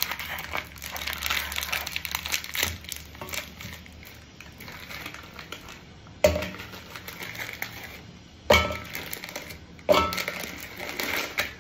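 Plastic biscuit wrapper crinkling and rustling as an Oreo packet is handled and torn open. Oreo biscuits are dropped into a steel mixer-grinder jar, giving three sharp knocks with a brief ring of the metal.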